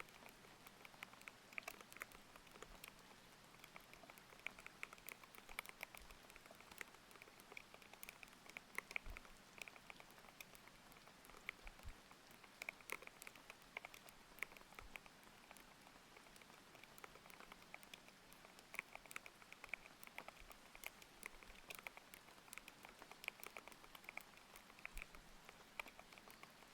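Quiet, continuous typing on a thocky linear mechanical keyboard with Aqua King switches: a quick, irregular run of key presses over a steady bed of rain.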